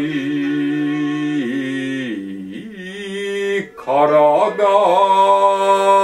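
A solo voice chanting in shigin style, stretching single syllables into long held notes with slow pitch bends. It breaks off briefly a little before four seconds in, then comes back louder on a higher held note.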